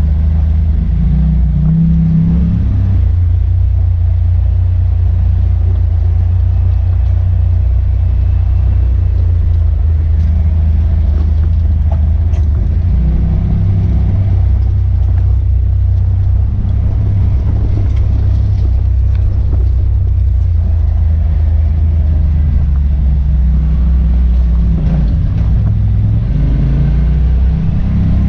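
Side-by-side UTV engine droning steadily while driving a dirt trail, heard from the cab, with small rises and falls in pitch as the throttle changes.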